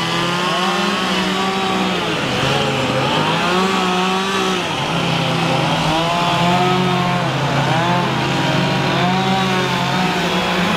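Several gasoline chainsaws running at once, their engines revving up and down as carvers cut into logs.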